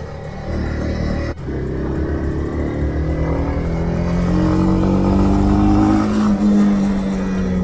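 Honda CB300R's single-cylinder engine pulling under throttle on the move, its note climbing steadily in pitch and loudness as the bike accelerates, with a brief sharp dropout about a second in.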